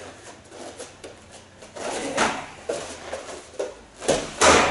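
Kicks landing on round padded gloves used as striking mitts: a sharp smack about two seconds in, then two more close together near the end, the last the loudest.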